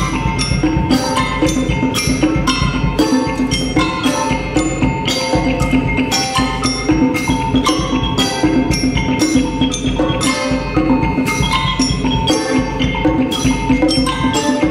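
Percussion ensemble playing a steady, even rhythm of mallet strikes on pitched percussion, several strikes a second, the struck notes ringing on over a low pulse.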